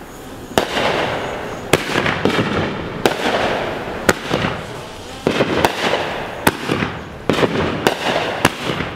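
Fireworks going off: a string of sharp bangs, roughly one or two a second, with crackling in between.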